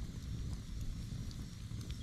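Campfire crackling, with a few sharp pops over a steady low rumble. A faint, repeated high chirping runs behind it.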